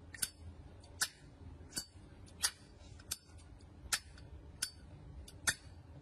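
Zippo windproof lighter's hinged metal lid being flipped open and snapped shut over and over, about eight crisp metallic clicks a little under a second apart.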